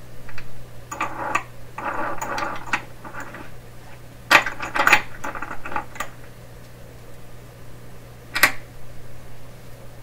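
Hand work on the radio's wiring at a workbench: rustling and small clattering of tools and parts for a few seconds, then a few sharp clicks, the loudest about four and a half and eight and a half seconds in, over a steady low hum.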